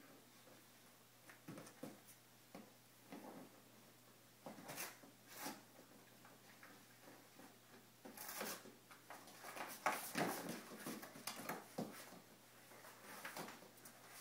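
Faint, irregular rustling, scraping and tearing of cardboard as two English springer spaniel puppies chew and paw at a flattened box, busiest past the middle.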